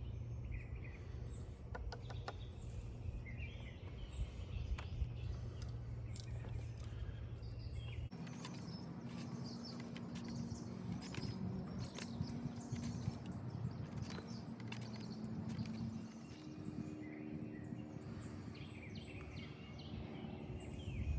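Outdoor ambience: birds chirping against a steady low rumble, with scattered small clicks and taps. About eight seconds in, the background changes suddenly to a lower hum carrying a couple of steady tones.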